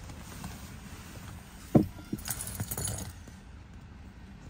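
Car keys jingling, with one sharp knock a little under two seconds in, while the key is handled before the engine is started.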